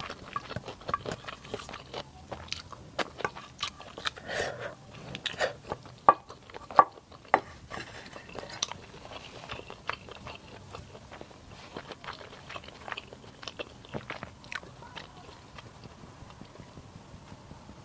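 Close-miked eating: chewing and crunching mouth sounds with irregular small clicks and smacks, and two sharp loud clicks about six and seven seconds in, thinning out toward the end.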